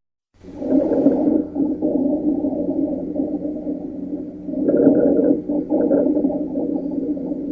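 Auscultation recording of abnormal lung sounds: low-pitched, musical, wheeze-like sounds heard through a stethoscope. They begin after a moment of silence and swell with breaths, about a second in and again around five seconds in.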